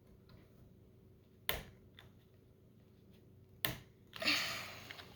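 Plastic Lego pieces being handled: a sharp click about a second and a half in, another near four seconds, then a short rustling noise that fades.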